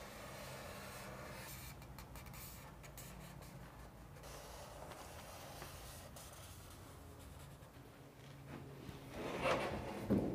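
Faint scratchy strokes of a Sharpie marker tracing along the underside of a metal valley flashing pan, then near the end a louder clatter of the sheet-metal pan being handled.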